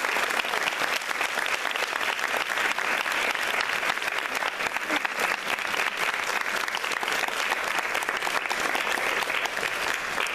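Audience applauding, many hands clapping steadily; it cuts off suddenly at the end.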